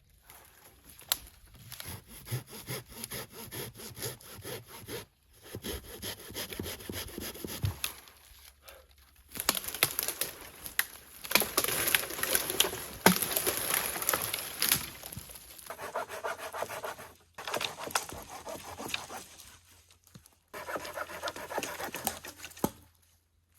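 Hand saw cutting through wood in steady back-and-forth strokes, in several separate bouts with abrupt breaks between them.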